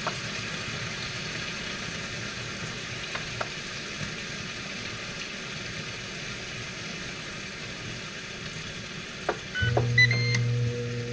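Ninja Foodi XL Grill & Griddle cooking chicken drumsticks with a steady sizzling hiss and a few faint clicks. Near the end its control panel gives several short high beeps as buttons are pressed, and a low steady hum from the unit's fan starts up.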